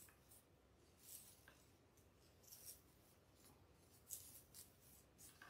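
Faint, brief rustles of a fabric ribbon bow being fluffed and shaped by hand, a few soft crinkles a second or so apart, the loudest about four seconds in.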